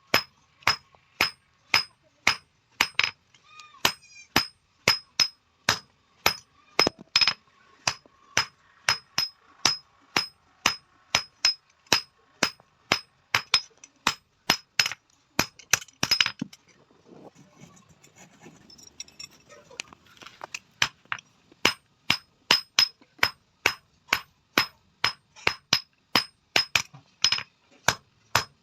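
Blacksmith's hand hammer beating a metal tawa, sharp ringing blows at a steady two to three a second. The hammering stops for about four seconds in the middle, with quieter scraping and handling noise, then resumes at the same pace.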